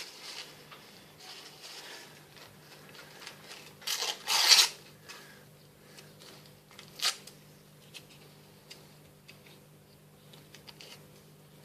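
Craft materials being handled on a work surface: small rustles and light taps, with a loud scraping rustle about four seconds in and a shorter sharp one about seven seconds in, over a faint steady hum.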